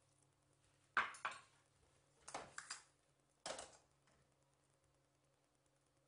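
Cast-iron stovetop sandwich toaster being turned over on the gas burner's grate: a series of metal clanks and knocks between about one and three and a half seconds in, then quiet.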